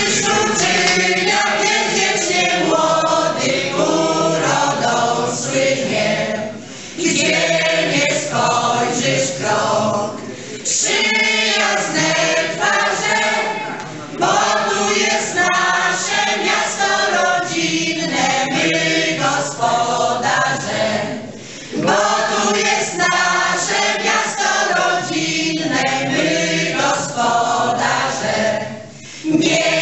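A choir of women and men singing a folk song together, phrase after phrase, with short breaks between the phrases.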